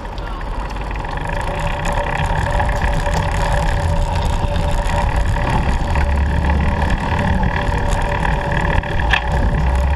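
Recumbent trike on the move: a steady rumble of road and wind noise that builds over the first couple of seconds and then holds, with a thin steady whine above it and a few light clicks.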